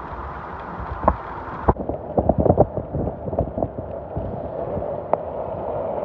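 Steady hiss of rain and small hail, with scattered sharp taps of hailstones and drops striking close to the microphone.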